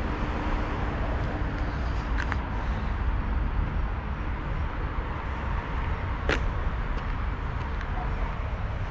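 Steady rumble of distant city road traffic, with a single sharp click about six seconds in.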